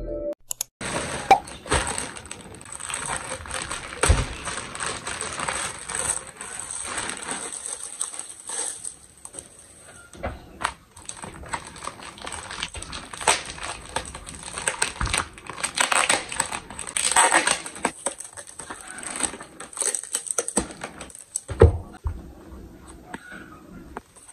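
Plastic packaging crinkling and rustling as it is handled and unwrapped by hand, with many small crackles and clicks.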